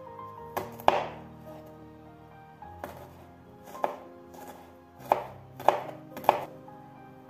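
Kitchen knife chopping garlic cloves on a cutting board: about seven sharp knocks at uneven intervals, with a quick run of three near the end.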